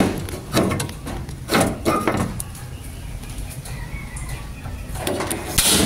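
Gas stove with electronic ignition being lit: a few knocks as the push-to-ignite knob is pressed and turned, then a short, loud burst of noise about five and a half seconds in as the burner catches.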